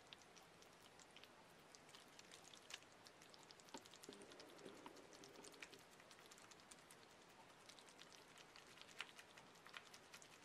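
Faint, irregular light clicks and patter as a plastic mesh strainer full of kefir grains is shaken over a ceramic plate, draining the fermented milk through the mesh.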